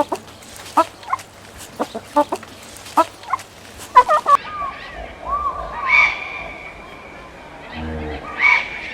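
Chickens clucking in quick short calls. A little past four seconds the sound switches to another recording, with longer pitched animal calls about six and eight and a half seconds in.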